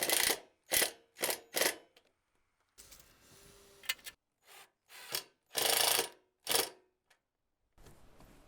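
Cordless power driver run in short bursts, four quick ones in the first two seconds, then a few more with a longer run about six seconds in.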